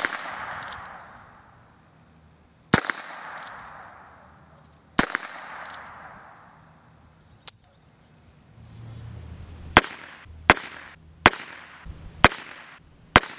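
Three .22 rimfire revolver shots from a Heritage Rough Rider single-action, about two and a half seconds apart, each trailing off in a rolling echo. Then a faster run of five sharp cracks, under a second apart, with little echo.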